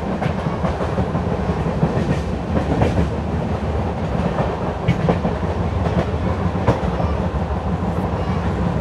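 LHB passenger coach of an Indian express train running on the track: a steady low rumble of wheels on rail, with sharp clicks at uneven spacing as the wheels pass over rail joints.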